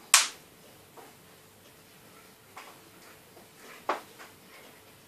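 Clicks and taps from a Samsung Galaxy Tab 3 Mini tablet being handled: one sharp, loud click just after the start, then a few fainter taps spread through the rest, one near four seconds in a little louder.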